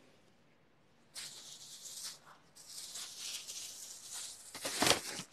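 Plastic grocery bags rustling and crinkling as groceries are dug out of them, starting about a second in, with a louder rustle near the end.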